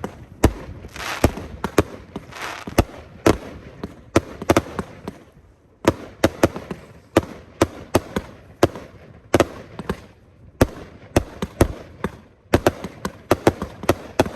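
Consumer firework cake firing: a rapid, irregular string of sharp shots and bursts, several a second, with brief lulls about five seconds in and again near the end.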